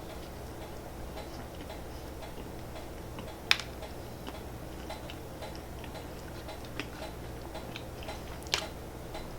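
Quiet close-up chewing of a strawberry jelly-filled donut topped with hard sugar-candy bits: scattered soft mouth clicks and small crunches, with two sharper clicks about three and a half and eight and a half seconds in, over a steady low hum.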